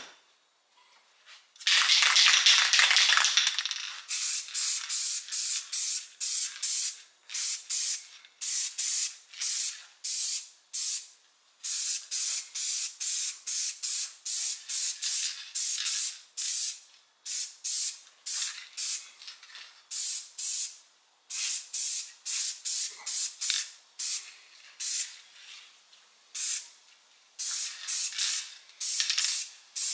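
Aerosol spray paint can spraying: one long hiss of about two seconds near the start, then many short bursts in quick succession, separated by brief pauses.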